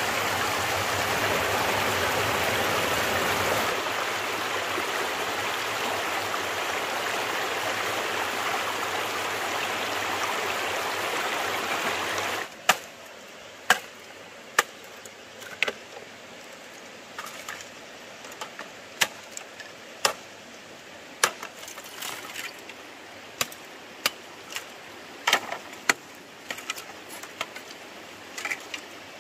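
Stream water rushing steadily. About twelve seconds in it cuts away to a quieter scene of sharp, irregular chopping knocks on wood, roughly one a second.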